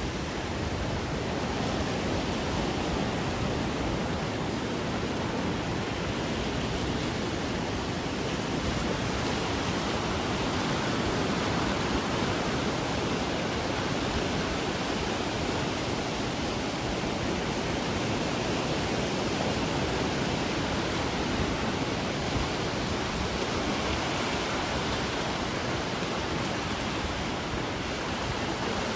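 Ocean surf as a steady, even rushing noise, with no separate breakers standing out.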